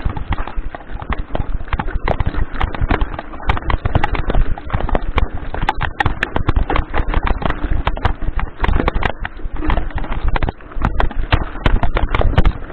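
Mountain bike clattering down a rocky trail: a dense, uneven run of knocks and rattles as the tyres strike stones and the bike shakes over them, over a low rumble.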